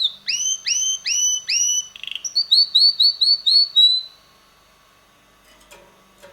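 Male red canary singing: four upward-sweeping whistled notes, about two a second, then a short buzz and a fast trill of quick repeated notes. The song stops about four seconds in, followed by a few faint clicks.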